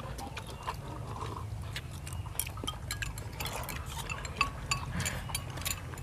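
Chopsticks clicking and tapping against ceramic rice bowls as people eat, a scatter of short light clinks.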